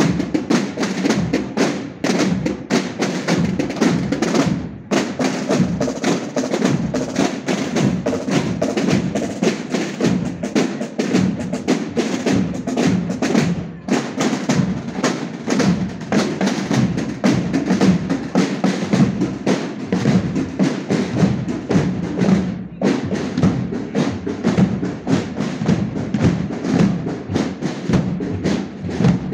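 A marching drum corps of side-slung snare-type drums and bass drums, beaten with sticks and mallets in a steady, dense marching rhythm.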